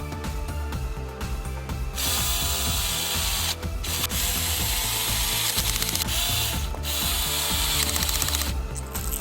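Bosch GSR 9.6-1 Professional cordless drill running under power in three bursts with two short stops, starting about two seconds in and stopping near the end.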